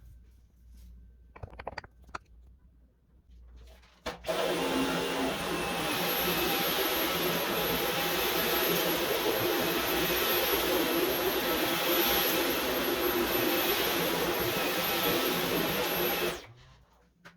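Dyson V11 cordless stick vacuum switched on about four seconds in. It runs steadily with a high whine that steps up in pitch shortly after starting, then cuts off suddenly near the end. A few light clicks come before it starts.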